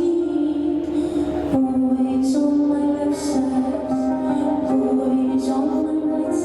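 Live concert music with a woman singing a slow song in long held notes.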